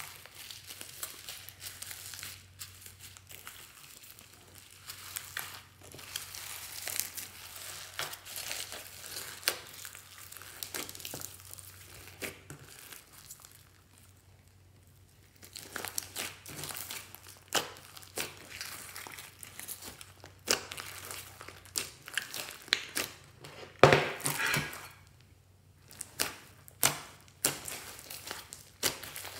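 Glossy slime packed with foam beads being mixed by hand: a dense crackling as the beads are pressed and churned, then a short pause, then sharp sticky pops and clicks as the slime is stretched and kneaded.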